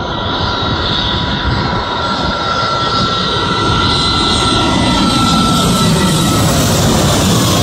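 Twin-engine jet airliner flying low overhead on final approach: loud engine rumble with a steady high fan whine, growing louder as it passes over, with a slowly falling sweep in the rumble.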